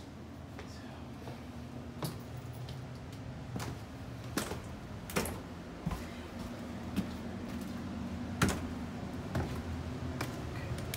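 Footsteps going down a flight of stairs, a knock roughly every second, over a steady low hum.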